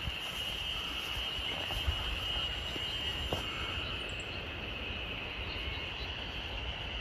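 Outdoor forest ambience: a steady high-pitched trill from a chorus of calling animals, over a low rumble, with a couple of faint clicks.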